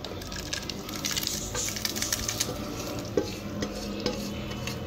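A spatula scraping fried beef and oil out of a metal pot into a pot of cooked lentils, with clicks of the spatula against the pot rims and a sizzle as the hot oil lands, strongest in the first half.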